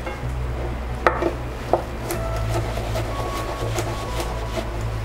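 Kitchen knife rough-chopping crushed garlic cloves on a wooden cutting board: irregular knocks of the blade on the board, a few sharper ones about a second in and lighter ones after, over a steady low hum.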